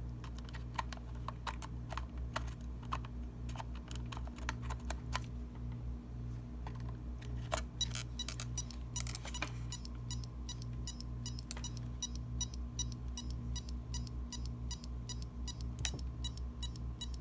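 Failing SATA hard drive running: a low hum that pulses evenly, with repeated sharp clicking that turns regular and rapid about halfway through. The clicking marks the drive as bad.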